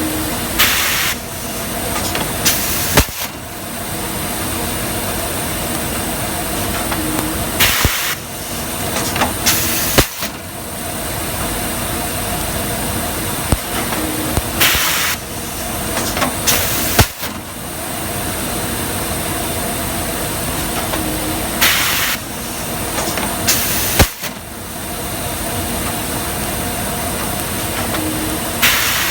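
Plastic garbage bag cutting machine running steadily with a low hum. Pairs of short, loud hisses about two seconds apart repeat roughly every seven seconds as the machine cycles.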